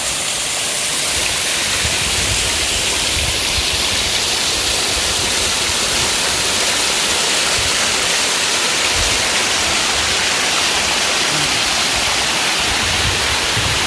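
Waterfall rushing steadily, a dense even sound of falling water with no pauses.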